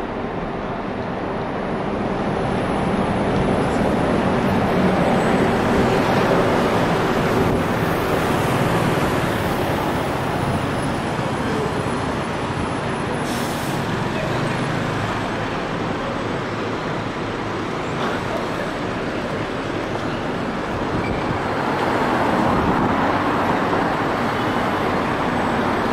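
Busy city street traffic: buses and cars running past in a steady wash of road noise, with a short air-brake hiss from a double-decker bus about halfway through.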